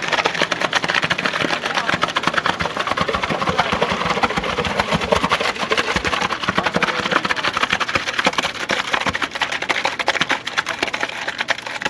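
Wet concrete with coarse gravel sliding down a mixer truck's chute and pouring into a drilled caisson hole: a steady, dense gravelly rattle, with the concrete mixer truck's engine running under it.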